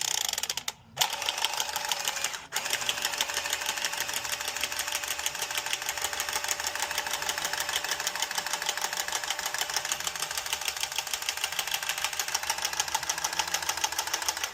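Cordless power saw cutting through copper pipe with a rapid, even chatter of strokes. It stops briefly twice in the first couple of seconds, then runs steadily.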